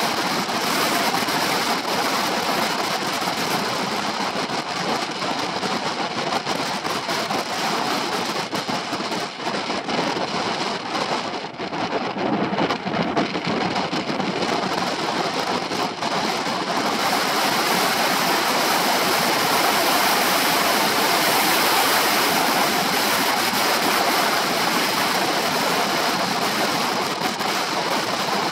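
Wind rushing over the microphone of a camera on a moving Honda PCX 125 scooter: a steady rushing noise. It thins for a few seconds in the middle as the scooter slows for a roundabout, then builds again as it speeds up.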